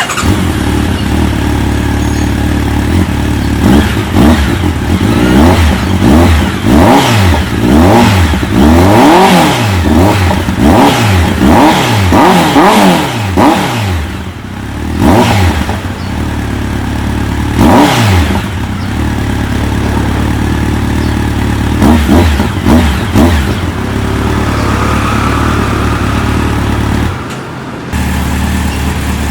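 Honda CB1300SF inline-four engine through a Yoshimura Leptos slip-on exhaust, idling and revved. It starts with a run of quick throttle blips one after another, then gives single blips a few seconds apart between spells of steady idle.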